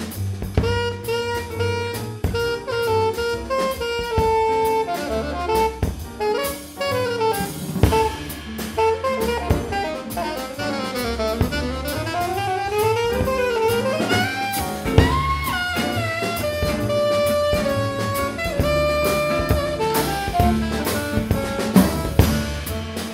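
Small jazz combo playing: a saxophone leads over piano, double bass, guitar and drum kit with cymbals, its line sweeping in quick runs up and down in the middle.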